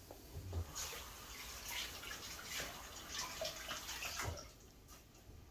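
Curry sizzling and crackling in hot oil in a pot, an uneven hiss that eases off near the end: the curry powder being burned in the oil before the fish goes in.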